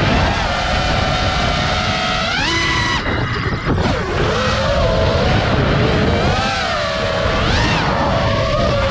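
FPV quadcopter's electric motors and propellers whining in flight, the pitch rising and falling with the throttle. There is a sharp climb in pitch about two and a half seconds in, then a brief throttle-off dip before it picks up again, over a low rumble of wind.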